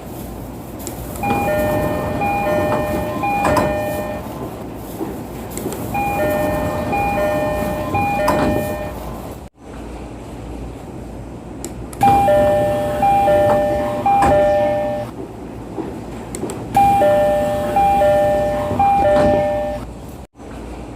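Commuter train door chimes over train and station-platform noise. First a Keisei-type E231 series door chime sounds twice, each time a short figure of clear tones repeated three times. After a sudden cut, the Tokyo Metro 08 series door chime, a different set of tones, sounds twice in the same way. The chimes signal the doors opening and closing.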